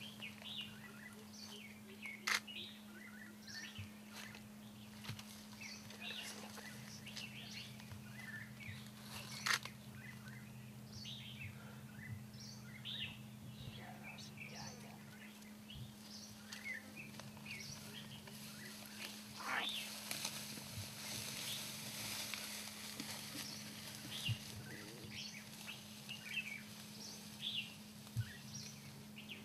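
Wild birds chirping and calling in many short, scattered notes, over a steady low hum, with two sharp clicks in the first ten seconds.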